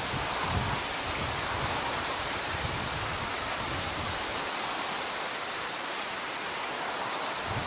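Steady rushing of flowing water, an even hiss with no change, with a few faint low knocks in the first second or so.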